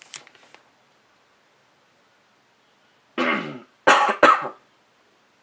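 A person clearing their throat and then coughing twice, sharply, after a few seconds of near silence.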